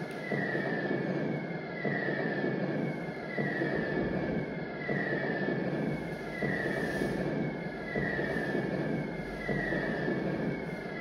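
Looped ambient soundtrack: a pulsing rush of noise with a falling whistle-like tone repeating about every one and a half seconds.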